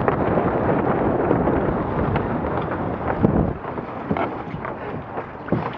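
Wind buffeting the microphone aboard a heeled Laser 2 sailing dinghy. About three and a half seconds in the wind noise drops, and scattered short knocks and taps come through.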